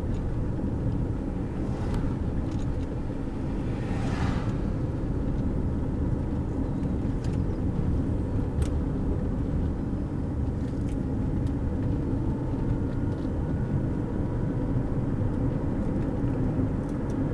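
Steady road noise of a car driving, heard from inside the cabin: a constant low rumble of engine and tyres, with a few faint clicks.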